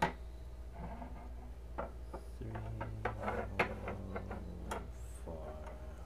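Metal butterfly knives being set down and shifted on a wooden tabletop: a series of light, irregular clicks and taps as the handles knock against the wood and each other.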